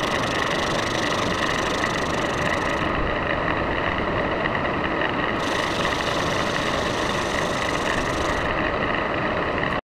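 Metal lathe running steadily, turning down the outside diameter of a 4WD actuator sensor body, with a constant high whine over its running noise. It stops abruptly near the end.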